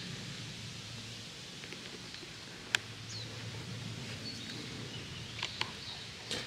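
Quiet outdoor ambience with a few faint, short high-pitched bird chirps, and one sharp click about halfway through.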